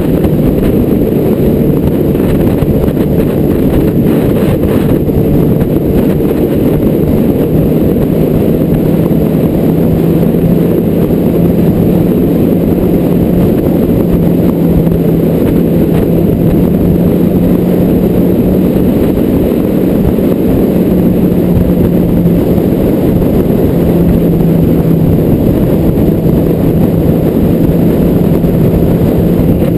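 A vehicle running at a steady cruising speed: a constant engine drone holding one pitch, over a loud low rumble of road noise.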